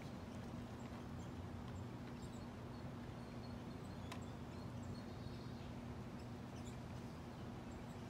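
Faint steady low hum with a few scattered faint ticks, one a little clearer about four seconds in.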